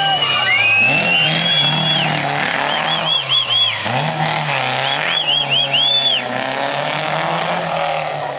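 Rally car engine revving high, its pitch climbing and dropping through gear changes as the car drives past. Two quick runs of short high-pitched tyre squeals come about three and five seconds in.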